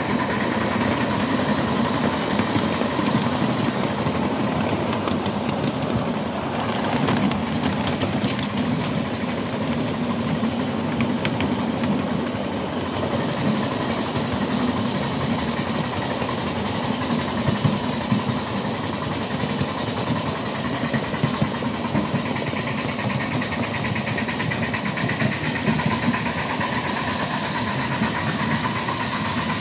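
Ride-on miniature live-steam train running steadily along its track, heard from a riding car: a continuous rumble with a dense clatter throughout.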